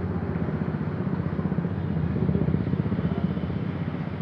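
A motor running steadily with a low, rapidly pulsing rumble that swells a little midway.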